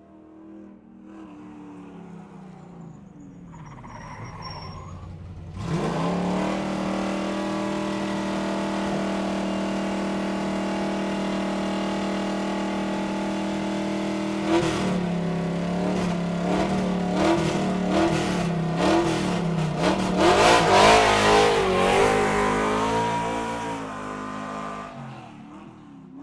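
Car engine sound effect: the engine runs quietly at first, then revs up sharply about five seconds in and holds a steady high note. After that the revs rise and fall repeatedly, loudest about twenty seconds in, then it fades out.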